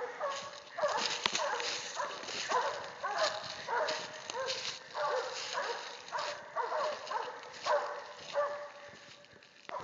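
Cur hog dog barking repeatedly, about two barks a second, each bark sharp and falling in pitch; the barking dies away about a second before the end.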